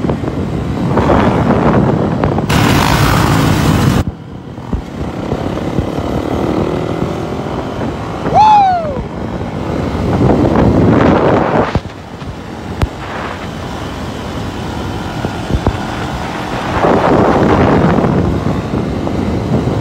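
Wind buffeting a phone microphone in a car moving at freeway speed, with road noise and a dirt bike's engine running alongside, in gusty swells. A short falling tone sounds about eight seconds in.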